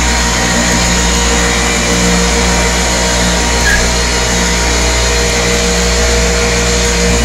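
Powerfist 440/880 lb electric cable hoist running steadily as it lowers the lift, a constant motor hum with several steady tones.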